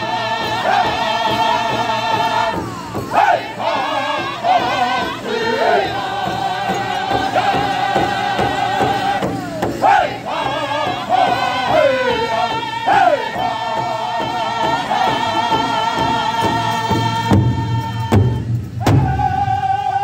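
Powwow drum group singing in high, wavering unison while beating a large shared drum with sticks. Near the end the singing breaks off briefly.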